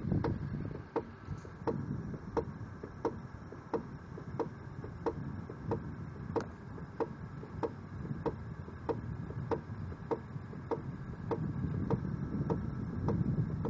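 Regular, evenly spaced ticks, about three every two seconds, over a low rumble that grows louder near the end.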